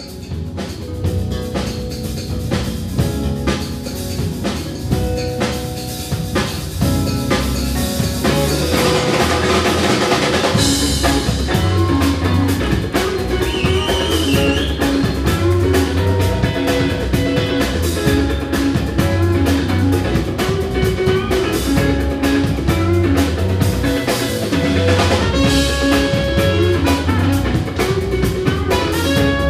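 Live band music: a drum kit plays a steady beat under low, sustained notes and melodic lines. The music grows louder over the first several seconds, then holds steady.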